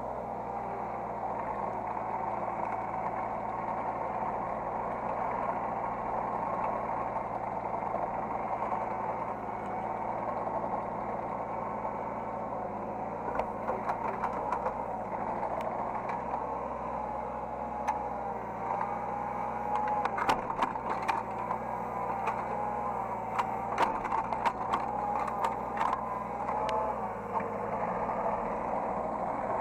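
Hydraulic excavator heard from the operator's seat: the diesel engine runs steadily while a hydraulic whine wavers up and down as the controls are worked. From about halfway on, sharp clattering knocks come in, thickest near the end.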